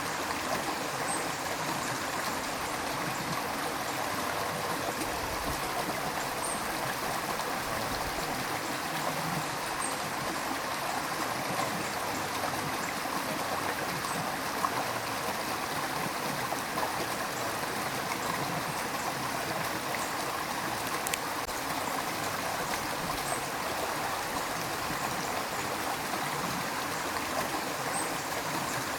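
A river stream running with a steady, even rush of water.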